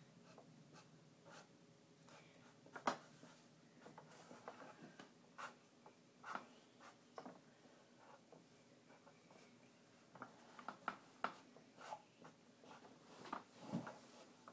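Faint scratching of drawing on paper, in short irregular strokes, with a sharper tap about three seconds in.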